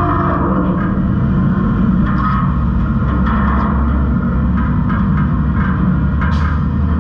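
New Way Rotopac rear-loader garbage truck running, with a steady low rumble from the truck and its turning packing auger. Short scattered crunches and clicks come from trash bags and containers being crushed as the screw drags them into the loaded body.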